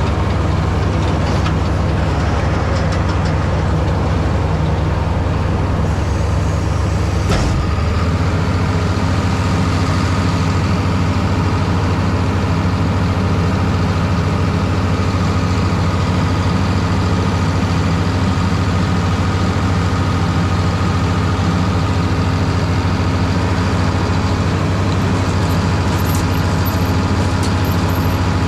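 Diesel engine of large cotton-harvest farm machinery running steadily, loud and constant. About seven seconds in there is a short clunk, after which the engine's note shifts slightly and holds steady again.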